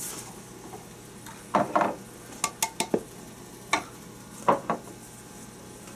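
Dry ingredients tipped from small cups into a plastic mixing bowl: a brief soft hiss of powder pouring at the start, then scattered sharp clicks and knocks as the cups tap against the bowl.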